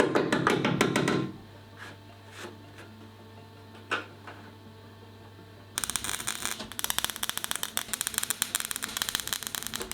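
Electric welding on sheet-metal patch pieces: after a brief stretch of music and a low steady hum, the welding arc starts about six seconds in and crackles with a fast, dense, irregular sizzle.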